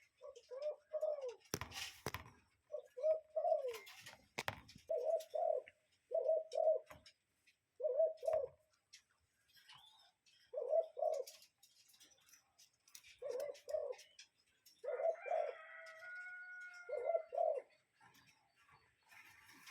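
Common cuckoo calling its two-note 'cuck-oo' over and over, a pair of low hooting notes every couple of seconds, some with an extra note. Two sharp knocks sound in the first five seconds.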